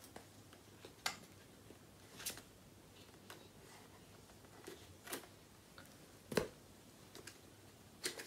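Scissors snipping at the packaging of a small cardboard box: a handful of separate sharp snips, a second or more apart, the loudest about six seconds in.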